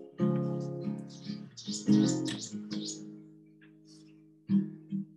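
Acoustic guitar strumming slow, ringing chords as the introduction to a worship song, the strums dying away about four seconds in before another strum near the end.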